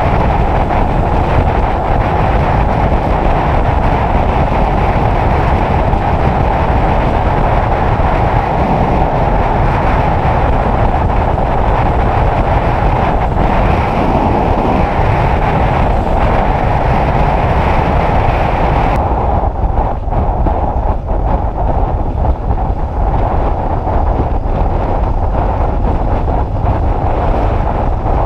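Heavy wind buffeting on the microphone of a Honda CBF600 motorcycle on the move, a steady loud rush. About two-thirds of the way through, the hissy top of the noise drops away suddenly.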